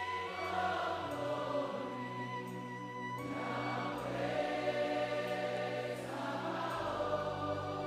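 Congregation and worship team singing a slow worship chorus softly, in long held notes over instrumental backing.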